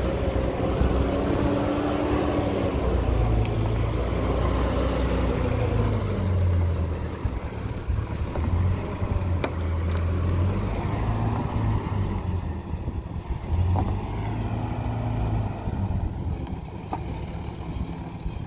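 Pickup truck's engine running as the truck drives off along a dirt track, its pitch rising and falling several times.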